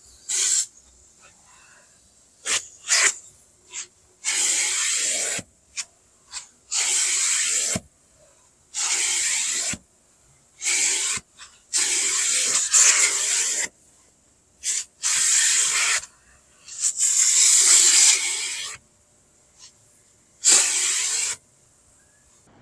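Car wash vacuum hose with an orange plastic nozzle sucking and rasping over the car's floor carpet. It comes in repeated hissing bursts, each lasting from a fraction of a second to about a second and a half, with short quiet gaps between them as the nozzle is pushed over the carpet and lifted.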